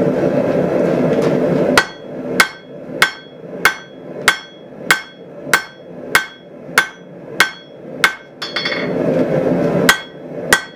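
Hand hammer striking a hot, restacked Damascus billet on a steel anvil, each blow ringing, at an even pace of about one and a half blows a second: setting the second forge weld of the pattern-welded billet. A steady rushing noise fills the first two seconds, and there is a short break with light clinks shortly before the last few blows.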